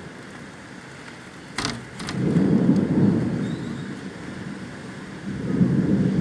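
Steady rain during a thunderstorm, with a sharp thunderclap about a second and a half in, followed by low rumbling that swells again near the end.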